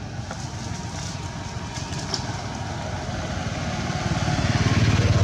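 A motor vehicle's engine running close by with a fast, even throb, getting louder near the end as it approaches.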